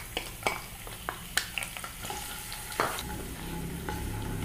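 Garlic and ginger frying in hot coconut oil in a pan: a steady sizzle, with a spoon stirring and several sharp clicks in the first few seconds.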